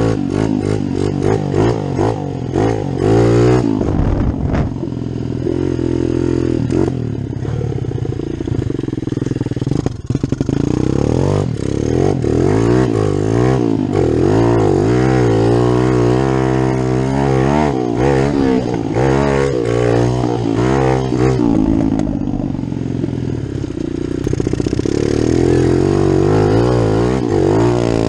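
Kawasaki KLX110 pit bike with a 143 cc big-bore kit, its single-cylinder four-stroke engine being ridden hard, revving up and down through the gears. The throttle drops off sharply about ten seconds in, and there are long climbs in revs in the middle and near the end.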